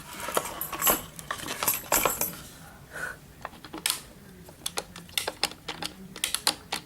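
Irregular sharp metallic clicks and clinks of a solid brass key cylinder and lock-picking tools being handled, just after the lock has been picked open.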